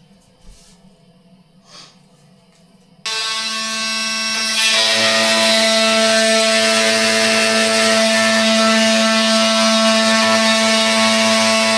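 A power tool starts suddenly about three seconds in and runs steadily with a whining hum, growing louder a moment later as it comes up to full speed or takes load. Before it there are only a few faint clicks.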